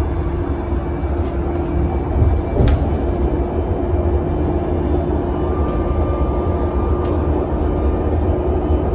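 Cabin noise of a Solaris Urbino 18 electric articulated bus under way: a steady low rumble with a steady hum over it. A couple of brief knocks come between one and three seconds in, and a higher thin whine joins about five seconds in for a couple of seconds.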